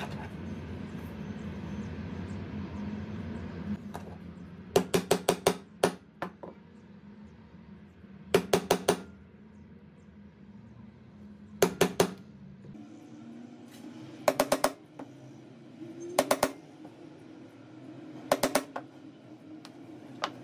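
Claw hammer tapping a small punch tool held against denim pieces on a cutting mat: six short groups of three to six quick, sharp taps, a few seconds apart.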